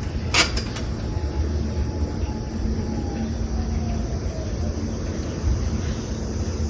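Steady low rumble of a passing vehicle, with one sharp click about half a second in and a faint tone that slowly falls in pitch over the next few seconds.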